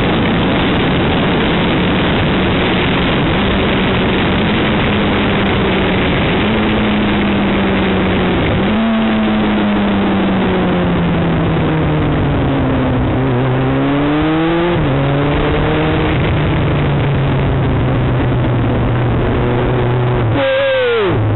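Heavy wind rush on a motorcycle helmet over a Kawasaki ZX-9R's inline-four engine. The engine note climbs under throttle and drops at gear changes, about 9 and 15 seconds in, and dips sharply near the end as the throttle closes.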